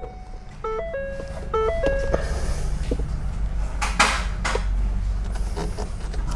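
A held electronic tone, then a quick little tune of short stepped electronic chime notes in the first two seconds. After that comes a steady low hum and hiss, with a sharp knock about four seconds in.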